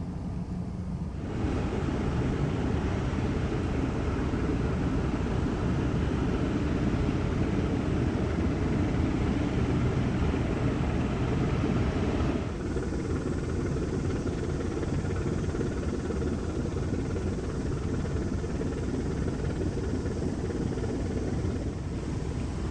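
Steady outdoor rumbling and rushing noise, heavy in the low end. It gets louder and brighter about a second in, and its upper hiss drops away about twelve seconds in.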